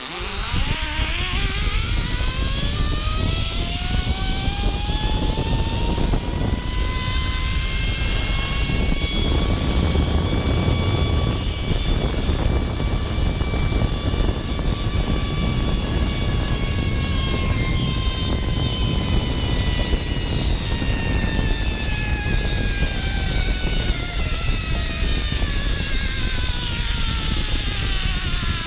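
Zip line trolley's pulley wheels running along the steel cable: a whine that climbs in pitch for about the first twelve seconds as the rider gathers speed, then slowly falls as the trolley slows. A steady rush of wind on the microphone sits beneath it.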